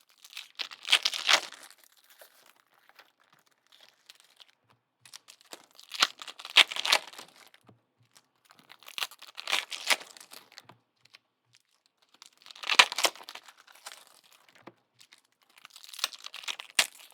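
Pen scribbling on a glossy trading card in five short scratchy bursts, each about a second long and a few seconds apart.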